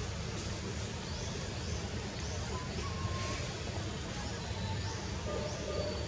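Outdoor forest ambience: a steady low rumble with short rising high chirps every second or so and a few faint whistled bird notes.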